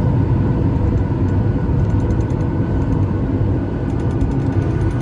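Steady low rumble of a moving vehicle heard from inside the cabin, with faint light rattling ticks.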